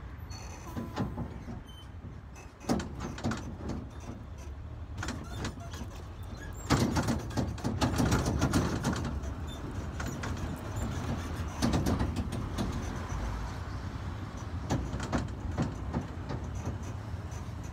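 Open-sided tourist train rolling along, a steady low rumble with frequent rattles and knocks from the carriage, louder about seven seconds in.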